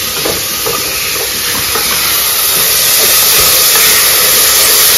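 Sliced onions and curry leaves sizzling in hot oil in an open pressure cooker, stirred with a spatula that scrapes and ticks against the metal pot. The sizzle grows louder over the first couple of seconds.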